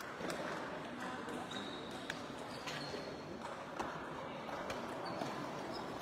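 Table tennis hall ambience: irregular sharp clicks of celluloid/plastic ping-pong balls striking tables and paddles in the games around, over a murmur of voices in the large hall.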